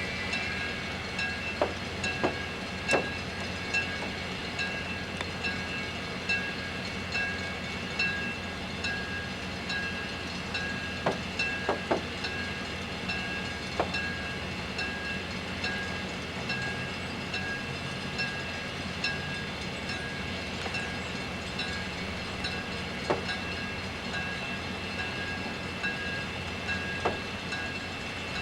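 A train rolling past: a steady rolling noise with scattered sharp clicks and knocks, over a high ringing that repeats about twice a second.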